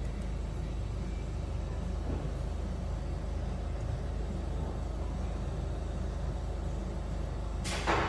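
Ford Focus petrol engine running at a steady idle with a cylinder 1 misfire, caused by an ignition coil that was soaked in oil. A short hiss sounds near the end.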